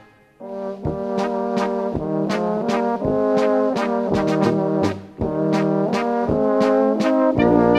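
Brass band music, an instrumental passage without singing, with a steady beat of about two strokes a second; it starts about half a second in after a brief pause.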